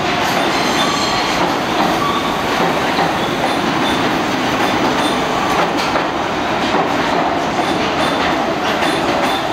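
An R46 subway train moving along the station platform: a steady loud rumble of steel wheels on the rails, with a few clicks over rail joints and a faint high wheel squeal.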